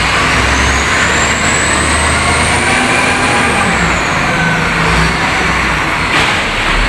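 A heavy vehicle engine running loudly, with a whine that rises over the first three seconds and then falls away. It starts and stops abruptly.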